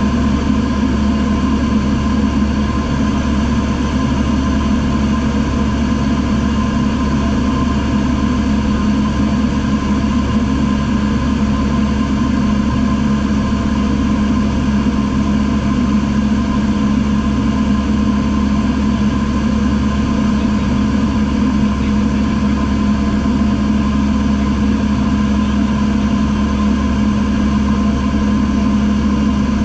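Single-engine light aircraft's piston engine and propeller heard from inside the cabin, running at a steady cruise setting with an unchanging pitch.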